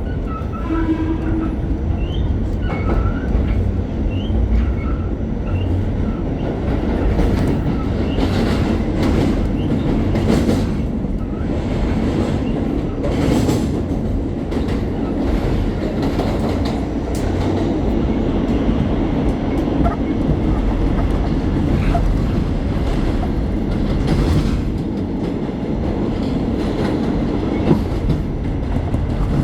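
Subway train running on the rails with a steady rumble. The wheels clatter over rail joints, loudest from about 7 to 14 seconds in, and there are a few brief wheel squeals in the first seconds.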